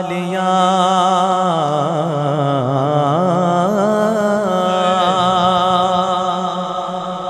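Male voice singing a drawn-out melismatic phrase of a Punjabi devotional naat. The note is held steady at first, swoops down and up with a wavering vibrato in the middle, then settles on a steady held note again.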